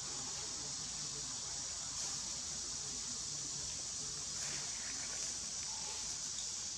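Steady high-pitched drone of an insect chorus, running without a break.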